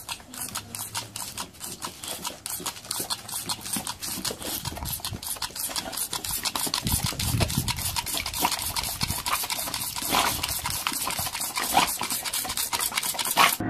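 A toy water pistol squirted rapidly, a short spurt about four or five times a second, while a boxer dog snaps its jaws at the stream.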